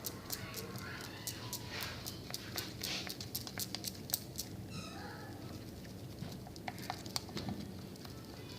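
Rapid, irregular clicks and taps of a stirrer against a container as the shampoo-and-salt slime mixture is worked, with faint high chirps in the background.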